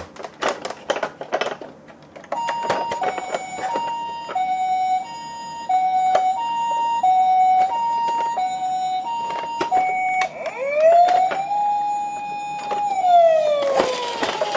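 Toy ambulance's electronic siren. After a couple of seconds of clicks and knocks from the toy, it plays a two-tone hi-lo siren, high and low notes alternating about every half second. About two-thirds of the way through it switches to a wail that rises, holds and falls near the end.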